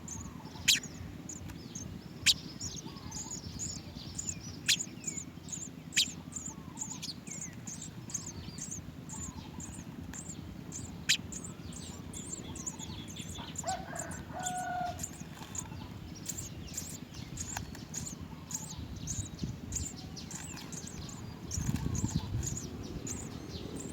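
House sparrows chirping: a steady stream of faint high chirps, broken in the first half by a handful of loud, sharp single chirps. A low rumble swells briefly near the end.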